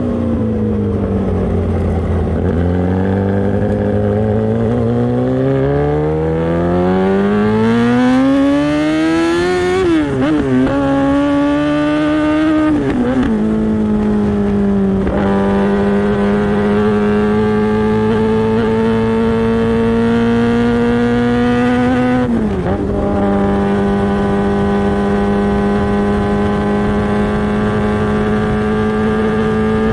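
Kawasaki ZX-10R inline-four engine through an SC-Project exhaust under hard acceleration. The revs dip, then climb steadily for several seconds, with quick upshifts in the middle where the pitch drops sharply. It then holds nearly steady revs at speed, with one more upshift about three-quarters of the way through.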